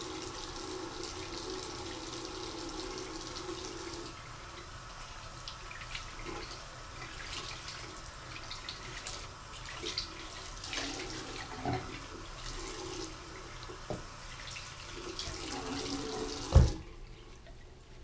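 Water running from a bathroom sink faucet and splashing over a clear plastic resin vat being rinsed, with scattered small knocks of the vat being handled. Near the end a single loud thump, then the running water stops.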